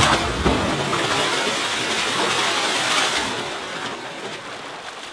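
A person plunging into a creek pool from a cliff jump: a sharp splash at the very start, then a long rush of spray and falling water that fades over about four seconds.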